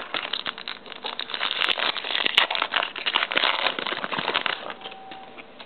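Foil wrapper of a Topps Chrome football card pack being torn open and crinkled by hand: dense, irregular crackling that dies down about four and a half seconds in.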